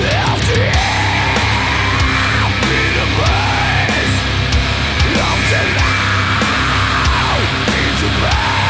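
Heavy metal music with a pounding beat and a line that swoops up and down in pitch about every second and a half.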